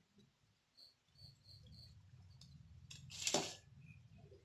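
A hand scooping thick, wet chili masala paste from a steel bowl and smearing it onto a whole Indian mackerel, with one brief, louder wet smear a little after three seconds in. Four faint, short high chirps sound in the second second.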